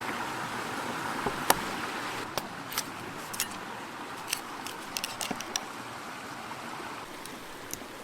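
Close-miked eating sounds: scattered sharp crackling clicks over a steady hiss, with one louder click about one and a half seconds in.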